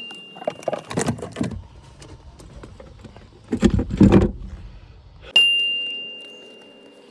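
Metallic clattering and knocking from tools and parts being handled during a car battery change, with a sharp ringing ding about five seconds in that holds one high pitch and dies away over about two seconds.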